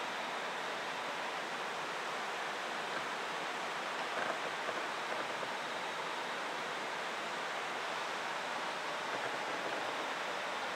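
Steady rush of running water, an even hiss-like noise with no breaks.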